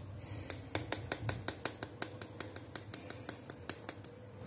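Quick run of sharp dry clicks, about five a second, from a hand spice grinder being twisted over a frying pan.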